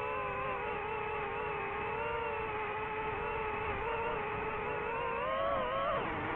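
DJI FPV drone's motors and propellers whining in flight, the pitch drifting slightly with throttle. Near the end the pitch drops sharply.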